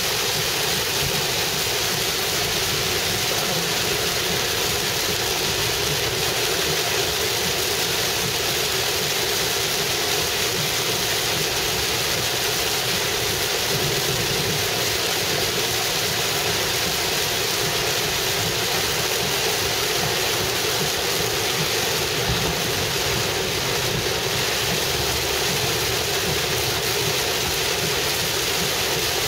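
Heavy rain pelting a moving car, heard from inside the cabin as a steady, dense rush mixed with tyre spray on the flooded road.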